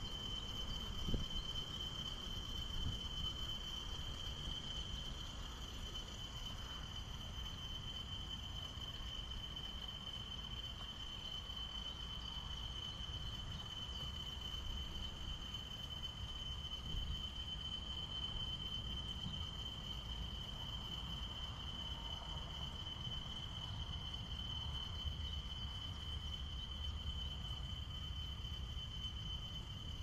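Continuous high-pitched cricket-like insect trill on one steady pitch, with a low rumble underneath.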